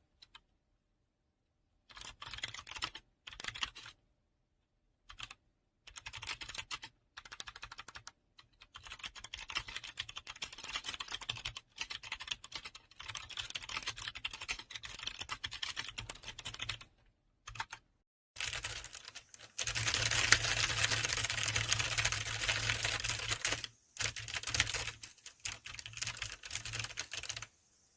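Typing on a computer keyboard: quick runs of key clicks, sparse at first, then steadier, with a louder, denser run about two-thirds of the way through.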